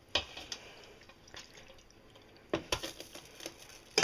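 A few short clinks and knocks of kitchen utensils, with the loudest near the end and a sharp pair about two and a half seconds in.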